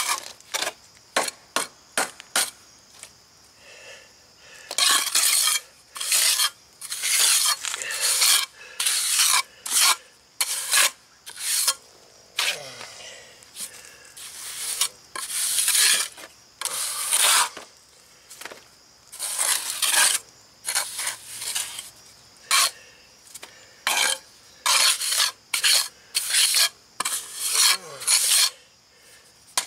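A pointed trowel scraping and rasping across a fresh rapid-set cement patch on a concrete slab, in many short, irregular strokes as the patch is worked and smoothed.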